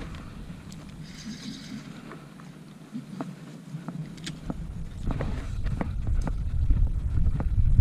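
Wind rumbling on the microphone outdoors, with scattered light clicks and knocks from handling. The rumble eases for a few seconds and then builds again.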